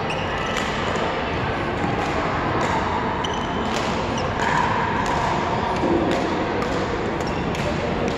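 Badminton rally: repeated sharp racket strikes on a shuttlecock at irregular intervals, with brief squeaks of court shoes on the floor, over a steady din in a large echoing hall.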